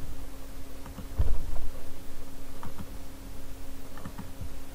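A few light computer mouse clicks, with one low thump about a second in, over a steady electrical hum.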